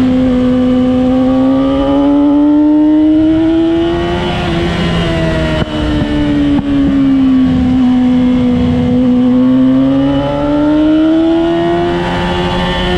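A vehicle engine lapping a race track at speed, its pitch sliding down and back up twice as it slows for corners and accelerates out. Two brief dips in loudness come near the middle.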